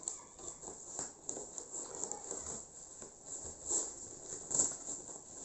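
Handling noise from unpacking: irregular rustling with light taps and clicks, and two slightly louder knocks near the end.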